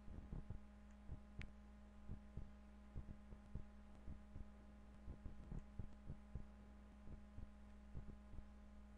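Soft, irregular clicking of a computer mouse's buttons and scroll wheel, several clicks a second at times, over a steady low electrical hum.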